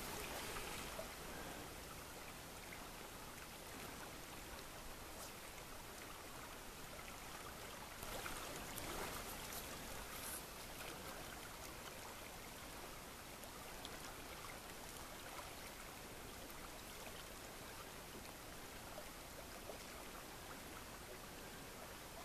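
Faint, steady rush of a shallow river's current flowing past, swelling a little about eight seconds in.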